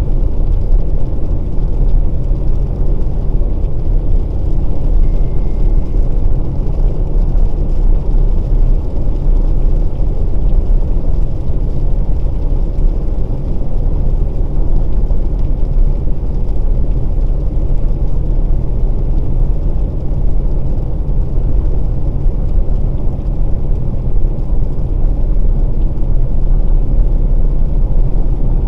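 Steady low rumble of a 2020 Volkswagen Passat Variant 1.6 TDI diesel estate driving on a rain-wet road: road, tyre and engine noise heard from inside the cabin.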